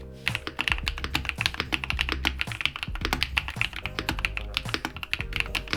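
Fast continuous typing on a Bubbly75 mechanical keyboard: a dense run of keystroke clacks, many per second, without a pause.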